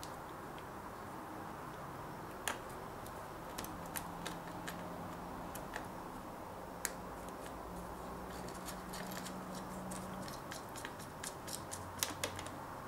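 Scattered small clicks and taps of little screws and a screwdriver as the laptop's heatsink is fastened back down, the clicks irregular and bunching together near the end, over a faint steady hum.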